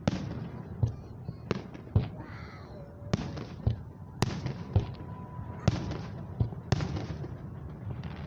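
Aerial fireworks shells bursting in a rapid series, a sharp bang every half second to a second, each followed by a low rumbling echo.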